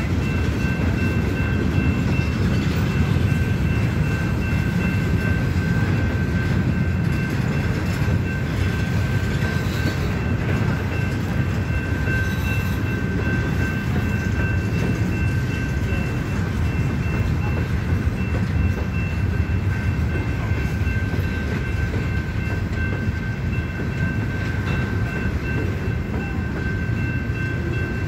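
A CSX freight train of flatcars rolling past at a grade crossing: a steady, even rumble of wheels and cars on the rails, with a steady high-pitched ringing tone over it.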